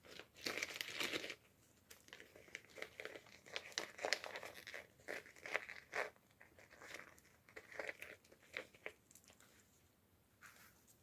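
Toy packaging being crinkled and torn open by hand: a loud, dense crumpling burst about half a second in, lasting about a second, then irregular crinkles and rustles that die away near the end.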